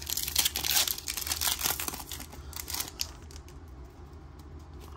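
Foil wrapper of a Pokémon trading card booster pack crinkling as it is pulled open: dense crackling that thins out to a few light ticks about three seconds in.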